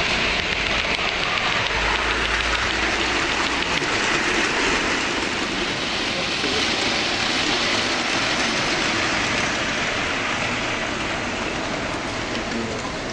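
OO gauge model trains running on the layout's track, a steady mechanical rattle and whirr of small wheels and motors.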